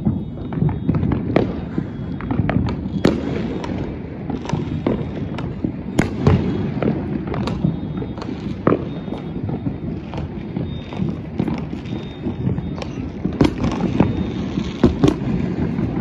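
Fireworks and firecrackers going off all around: a continuous low rumble of many overlapping bangs, with sharper, louder cracks every second or so.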